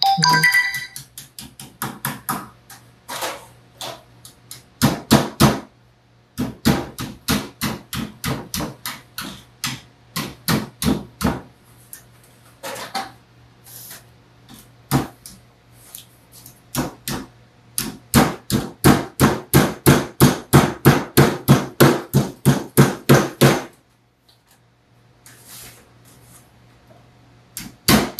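Hammer tapping along the edge of thin sheet metal laid on a wooden table, folding the edge down to form a seam. The blows come in quick runs of about four a second, loudest in a long run after about 18 seconds, then stop for a few seconds and resume just at the end.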